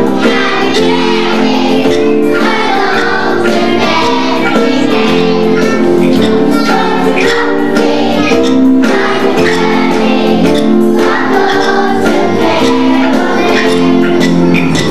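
Music with a group of children singing along.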